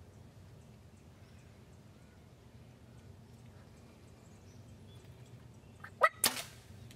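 Quiet outdoor stillness with a faint steady low hum, broken about six seconds in by a sudden loud, sharp sound lasting well under a second.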